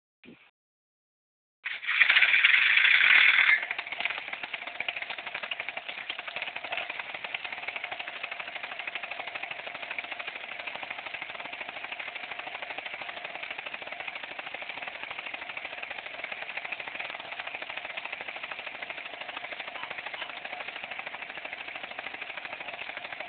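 Paramotor engine and propeller running with a fast, steady rattle. It comes in loud for about two seconds near the start, then settles to a lower, even running level.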